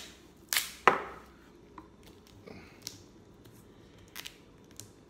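Tape being pulled and pressed onto a camera rig right beside its on-camera microphone: two sharp rasps within the first second, then scattered small clicks and handling rustles.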